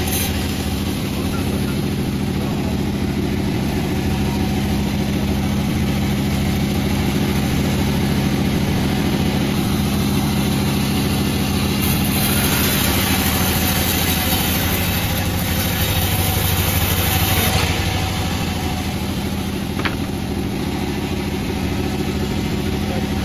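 Engine of the wood-sawing machine running steadily at a constant pitch, with a louder hiss of the cut from about halfway through for some five seconds, and a single sharp click near the end.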